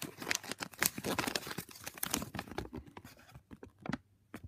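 Thin paper leaflet from a Kinder Surprise egg crinkling and rustling as it is handled and unfolded by hand: a dense run of small crackles for about three seconds, then only a few scattered ones.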